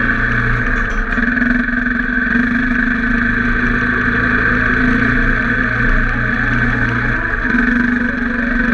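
Enduro motorcycle engine running at a steady pace on a gravel climb.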